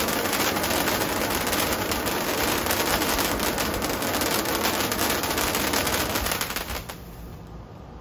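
Handheld sparkler firework spraying sparks with a dense, rapid crackle like a string of tiny pops; it dies away about seven seconds in as the firework burns out.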